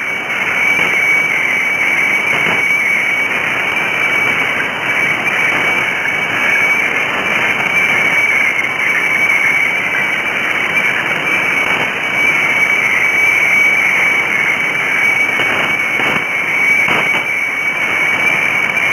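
Shortwave radiofax (weather fax) signal from HSW64 Bangkok on 7395 kHz, heard through a receiver in sideband mode: one steady, slightly wavering high tone over a thick hiss of radio noise, with a few faint crackles of static.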